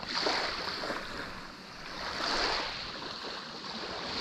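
Small waves washing up on a sandy shore, a hissing wash that swells twice, once at the start and again about two seconds later.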